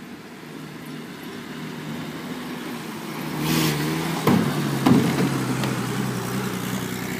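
Toyota LandCruiser tray-back ute driving past, its engine running and getting louder as it passes about four seconds in. A couple of sharp knocks come as it passes.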